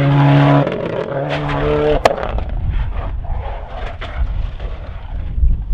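Rally car engine held at high revs, cutting out for a moment and coming back at a slightly higher pitch, then a single sharp crack about two seconds in. After the crack the engine note gives way to a low rumble with scattered small clicks.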